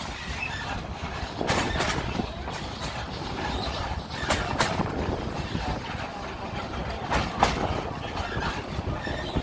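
Narrow-gauge steam train rolling: a steady rumble from the wheels and carriages, with several sharp clanks.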